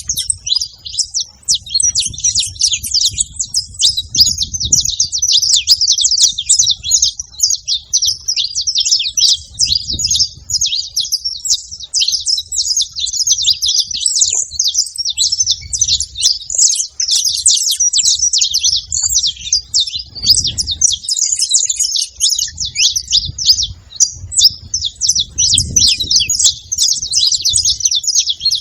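Saffron finches chirping and singing together in a dense, unbroken stream of rapid high chirps, with an intermittent low rumble underneath.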